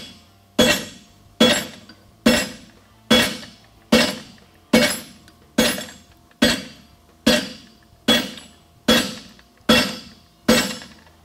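Steady, evenly paced hammer blows on a red-hot 5/8-inch square steel bar over the anvil, being forged into a horseshoe, a little over one blow a second. Each strike rings out with a metallic tone that dies away before the next.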